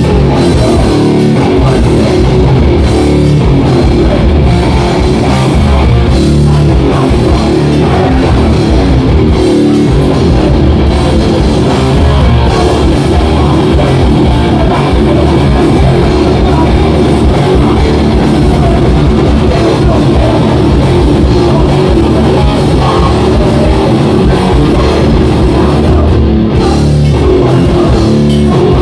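Hardcore punk band playing live, very loud: distorted electric guitars, bass and drum kit.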